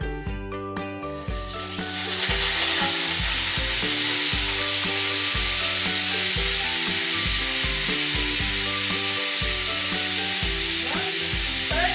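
Fish fillets laid into hot oil in a frying pan, sizzling loudly and steadily from about two seconds in, with background music underneath.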